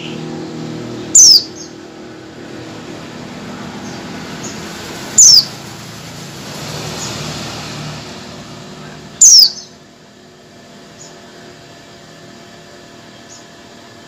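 Female white-eye (pleci) giving its contact call to draw males: three sharp, high calls, each a quick downward slide, about four seconds apart, with a few faint high chips between. A low background rumble runs under the first two-thirds and stops about ten seconds in.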